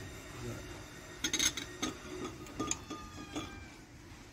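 Sharp metal clinks and knocks, some ringing briefly, as an individual cylinder head of a WD615 diesel engine is handled and set down on the engine block. A cluster of them comes about a second in, then a few more spaced out.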